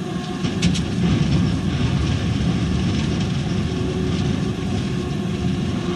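Ride inside a 1954 Hansa/Esslingen T4b tramcar: steady running noise of the car's motors and wheels on the rails, with a couple of sharp clicks about half a second in and a steady hum coming in past the middle.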